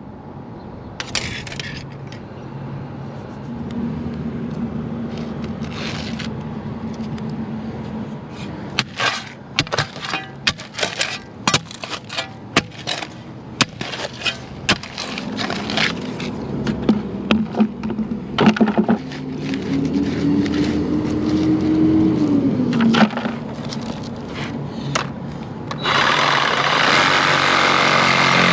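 Knocks and clanks on a work site over a running engine, whose pitch rises and falls. Near the end a much louder engine comes in suddenly and keeps running.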